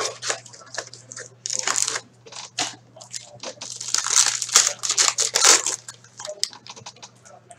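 Hands tearing open a hockey card box and its foil-wrapped card pack, with crinkling and ripping in irregular bursts, loudest about four to six seconds in.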